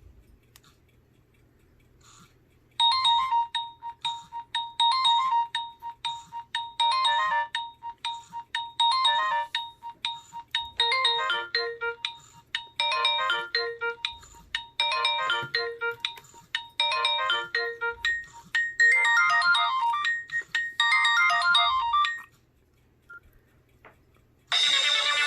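Nokia 6682 ringtone preview playing through the phone's small speaker: an electronic tune with a steady repeating pulse under a melody. It starts about three seconds in and stops after about nineteen seconds. A different ringtone begins near the end.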